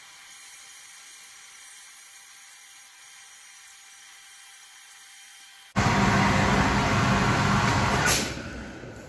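Aqua blaster (wet blasting cabinet) gun spraying a jet inside the cabinet. A faint steady hiss runs until about six seconds in. Then a loud rushing spray with a low hum starts and eases off about two seconds later.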